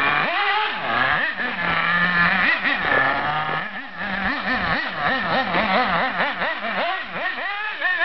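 Remote-control buggy's small nitro engine revving up and down in quick throttle blips as it drives, with a short steady stretch about two seconds in.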